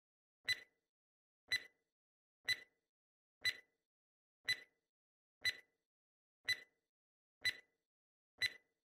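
Clock-tick sound effect of a quiz countdown timer: a short, sharp tick once every second, nine times, marking off the seconds left to answer.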